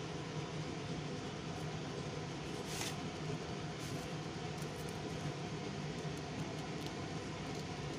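A hand picking through crisp fried nimki on paper towel in a glass bowl: faint rustles and light clicks, with one brief rustle about three seconds in, over a steady low hum.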